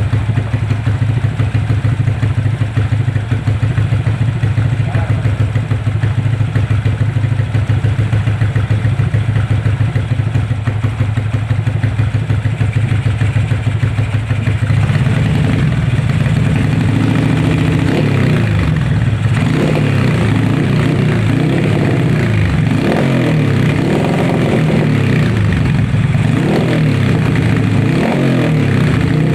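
Motorcycle engine fitted with a 57 mm big-bore block and an ORBR chicken-pipe exhaust, idling steadily with an even pulse. About halfway through it is revved repeatedly in short blips, the pitch rising and falling roughly every second and a half.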